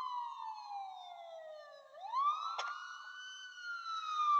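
Police siren wailing: a slow falling tone, a quick rise about two seconds in, a short hold, then a slow fall again. A brief click comes just after the rise.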